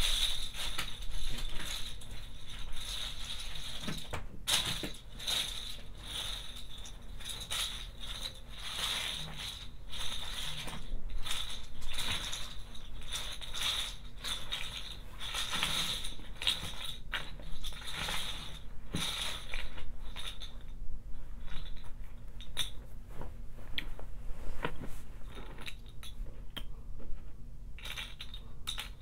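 Many plastic bottle caps clicking and clattering against one another as they are moved about on a shag rug by hand and bare feet: a steady, dense run of light clicks.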